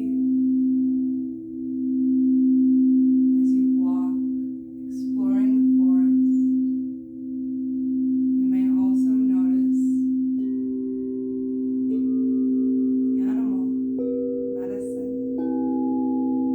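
Singing bowls ringing: a sustained low hum that swells and fades every second and a half or so, with higher tones joining one after another from about ten seconds in.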